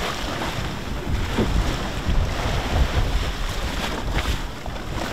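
Strong wind buffeting the microphone in gusts, with choppy water sloshing around the boat.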